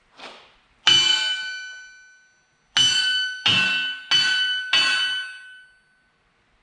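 Steel ringing like a bell under hammer blows: one strike, a pause, then four quick strikes about two-thirds of a second apart, each ringing on at the same pitch and slowly dying away.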